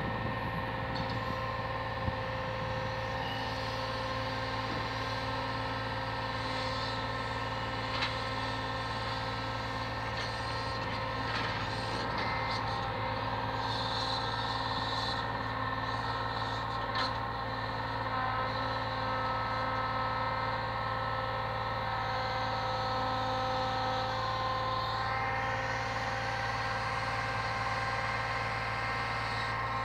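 Diesel engine of a brick delivery lorry running steadily to drive its truck-mounted crane's hydraulics, with steady tones from the running machinery and a few knocks as the crane handles brick packs.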